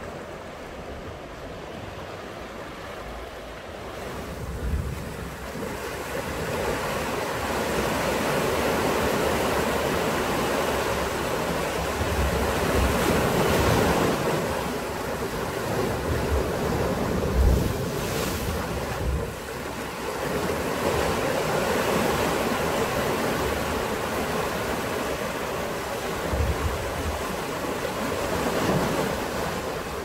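Sea waves breaking and washing against basalt rocks, the surf swelling and easing, louder after about five seconds. Wind buffets the microphone with occasional low thumps.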